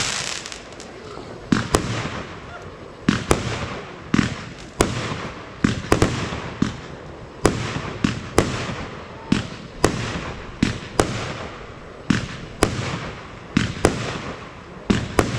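Fireworks going off in rapid succession, a sharp bang about every second, some in quick pairs, each trailing off before the next.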